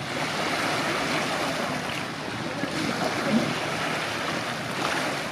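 Lake water lapping and splashing in the shallows around people wading beside an inflatable dinghy, with wind noise on the microphone.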